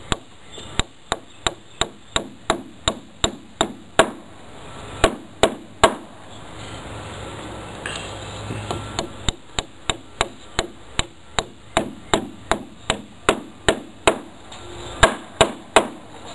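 Claw hammer tapping plastic anchors into pilot holes drilled in a wooden deck post: quick, even taps at about three a second, in two runs with a pause of a few seconds in the middle.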